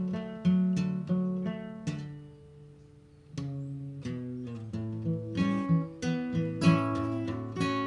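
Acoustic guitar music: plucked and strummed notes. About two seconds in a chord is left to ring and fade, then the playing resumes.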